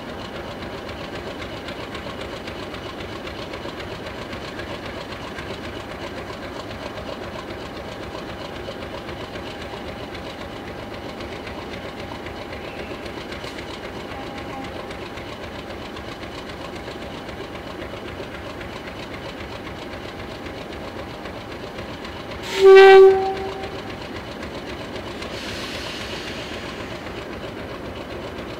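Class 50 diesel locomotive's English Electric 16-cylinder engine idling steadily, with one short, loud horn blast a little over three-quarters of the way through, followed by a soft hiss.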